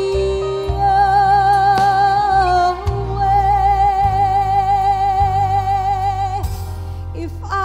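A woman singing into a microphone over instrumental accompaniment with a steady bass line. She steps up from a lower note to a long, high held note with wide vibrato, which ends about six and a half seconds in, and a new phrase begins near the end.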